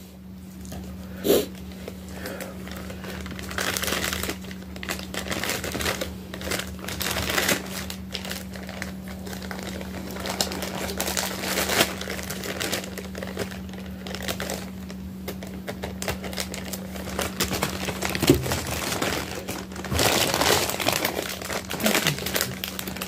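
Plastic packaging crinkling and rustling irregularly as a poly mailer bag and small clear plastic bags are handled and opened, over a steady low hum.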